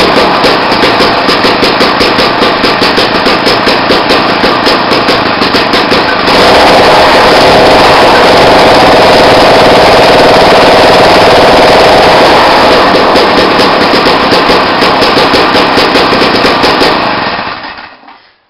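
Small two-stroke engine of a gas ice auger running with an uneven, pulsing idle. It runs steadier and louder for about six seconds in the middle, goes back to the pulsing idle, and stops near the end. The owner puts the rough idle down to a cheap two-stroke, now running after its too-lean carburetor mixture screw was opened up.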